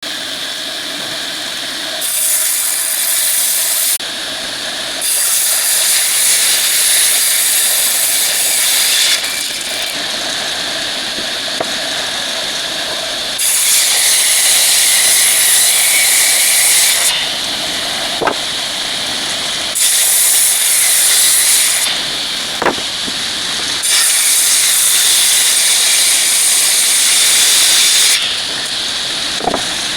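Woodworking power tool running steadily while wood is fed through it in repeated passes. Each pass is a hissing rush lasting two to four seconds, about five in all, with a few sharp clicks between them.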